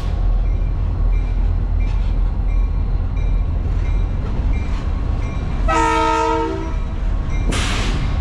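A passing train with a steady low rumble. About six seconds in, the locomotive sounds its horn: a chord of several tones held for about a second. A brief loud rush of noise follows near the end.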